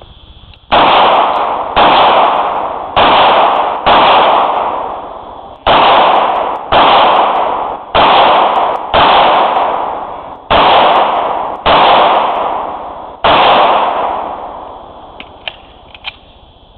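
Eleven pistol shots fired about a second apart, in groups of four, four, two and one, each with a long echoing tail. A few faint clicks follow near the end.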